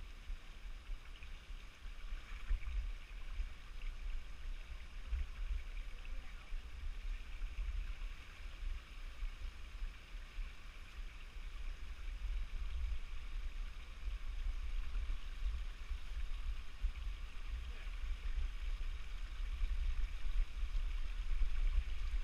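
Small stream trickling and splashing over rocks in a low cascade, a steady watery hiss, with a fluctuating low rumble of wind or handling on the microphone underneath.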